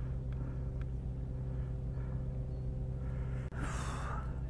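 A steady low hum with a few steady pitched tones, and a brief rustle about three and a half seconds in.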